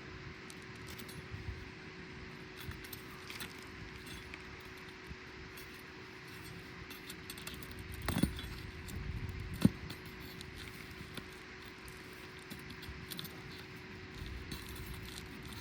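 Asphalt 3-tab roof shingles being lifted and handled: light scraping and crackling with scattered small clicks, and two sharp knocks about eight and nine and a half seconds in. A faint steady hum runs underneath.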